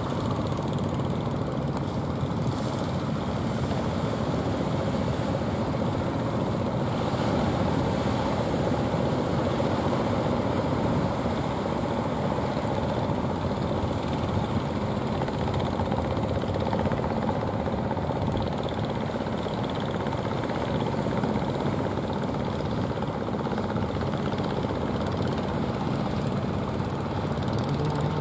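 Engines of several outrigger fishing boats running at speed as they motor toward shore, blending into one continuous drone.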